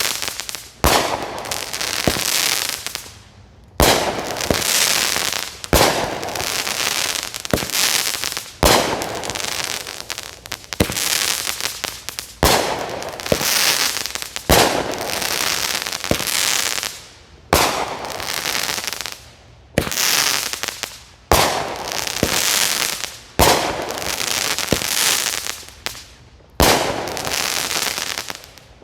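AFW Binary Star multi-shot firework firing shot after shot, about every one and a half to two seconds. Each shot is a sharp bang followed by a crackling hiss that fades over a second or two. The last shot dies away near the end.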